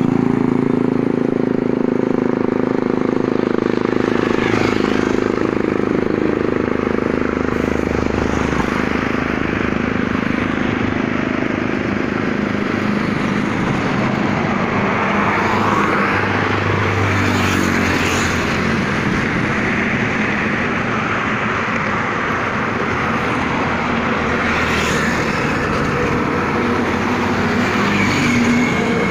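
Highway traffic with heavy lorries passing close by: a truck's diesel engine droning at the start, then a steady tyre-and-engine roar that swells each time another vehicle goes past.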